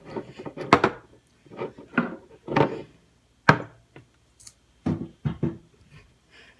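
A handful of short knocks and clatters at irregular intervals, from small cups and a utensil being handled and set down while the soapy slime mixture is scooped into them.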